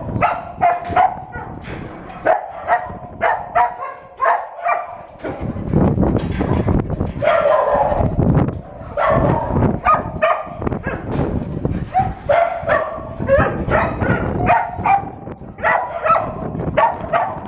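Several dogs barking and yipping in short bursts, one after another without let-up.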